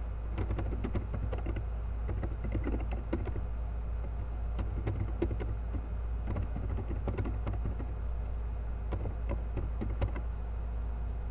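Typing on a computer keyboard: irregular key clicks, several a second, over a steady low hum.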